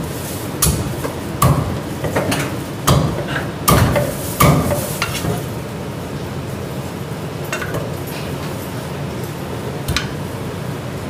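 Sharp knocks and clinks of a cleaver and steel plates against a wooden chopping block as chopped chicken is lifted onto the plate. About six come in the first five seconds, at uneven intervals, and two more follow later, over a steady kitchen hiss.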